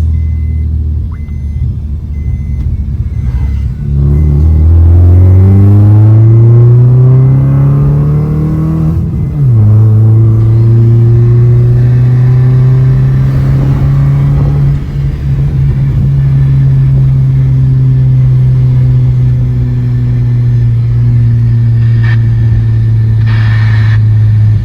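Maruti Suzuki Baleno's remapped engine on a test run. It runs at low revs at first, then revs climb steadily for about five seconds. The pitch drops sharply as it shifts gear, then it holds a steady drone at constant revs.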